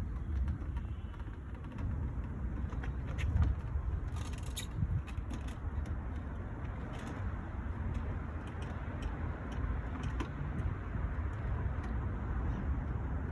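Plastic grille clips clicking and rattling at irregular moments as they are pried loose with a flathead screwdriver, with a small cluster of clicks about four seconds in, over a steady low rumble.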